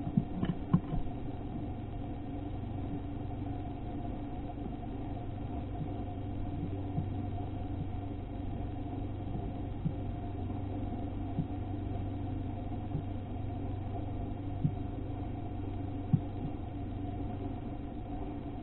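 Steady low hum with a few sharp clicks scattered through it, a second or several apart. The clicks fit a male brown-headed cowbird pecking and cracking sunflower seeds on a wooden platform feeder.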